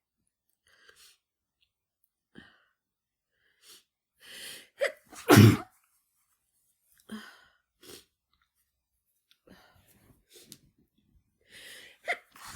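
A woman sneezing once, loudly, about five seconds in, after a sharp catching intake of breath, with short sniffs and breaths scattered around it and breaths building again near the end. The sneezes are brought on by chhinkni, a sneeze-inducing herb, while she has the flu.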